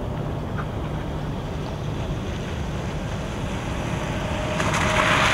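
A box truck approaching on a wet, slushy road, its engine and tyres growing louder near the end, over a steady wind rumble on the microphone.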